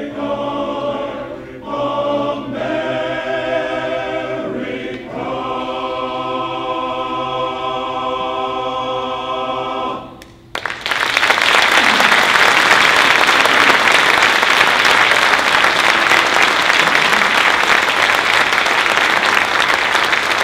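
Men's barbershop chorus singing a cappella, ending the song on a long held chord that cuts off cleanly about ten seconds in. The audience then breaks into applause, louder than the singing, which carries on to the end.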